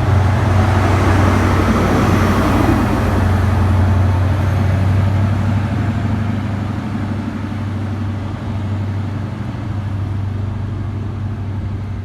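Class 43 HST power car's diesel engine running with a deep, steady drone, loudest in the first few seconds and then growing gradually fainter.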